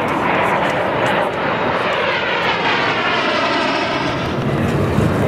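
Aero L-39 Albatros jet flying past with its Ivchenko AI-25TL turbofan running. The steady jet noise sweeps in pitch as the aircraft goes by, around the middle.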